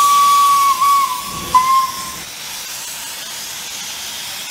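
Steam whistle of a replica Great Western Railway Firefly-class broad gauge locomotive sounding one note: a long blast that breaks off briefly, then two short toots ending about two seconds in. A loud, steady hiss of escaping steam runs underneath and continues after the whistle stops.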